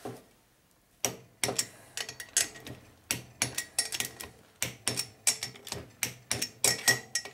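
Irregular sharp metallic clicks and knocks, starting about a second in, as a torque wrench is worked on bolts to check how tight a zip gun ran them, with the tool and metal parts clinking.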